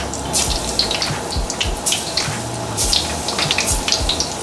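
Egg-and-starch-coated chicken thigh pieces deep-frying in hot oil in a wok: a steady bubbling sizzle with many scattered pops and crackles.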